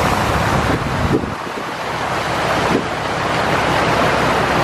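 Hurricane wind gusting across the microphone as a loud, steady rushing noise. It eases a little about a second in, then builds back up.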